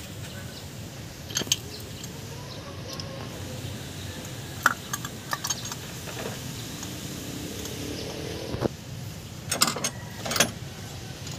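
Scattered metallic clicks and clinks of a spark plug socket and the spark plugs as they are fitted into the engine's plug holes, a few sharp ones spread out and a quick cluster near the end, over a steady low background rumble.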